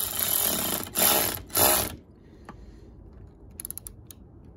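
Hand ratchet wrench clicking as it tightens a car battery terminal clamp: a run of ratcheting for about a second, then two short bursts, and a few light clicks near the end.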